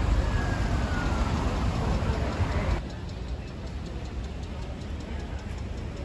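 Street traffic noise from passing vehicles, cutting off abruptly about three seconds in to quieter street ambience with a steady, fast ticking.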